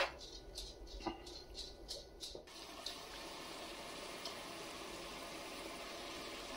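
A stirring utensil knocking and scraping against a nonstick pot, about half a dozen short taps in the first two and a half seconds. Then a steady sizzle of vegetables cooking in butter.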